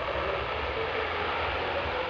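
Fireworks giving a steady, even hissing rush with no distinct bangs.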